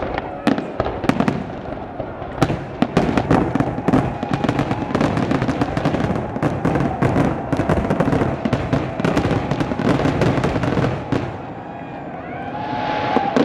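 Aerial fireworks in a rapid barrage: shell bursts going off in quick succession over dense crackling, thinning out and stopping about eleven seconds in. A rising swell of noise follows near the end.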